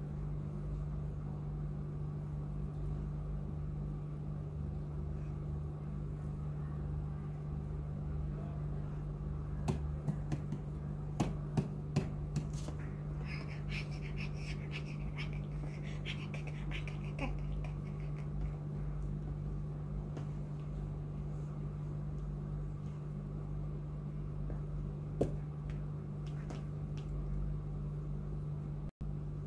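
Steady low hum of room background, with a few light clicks and taps about ten to twelve seconds in and another near the end, and a brief run of faint high chirps a little after the clicks.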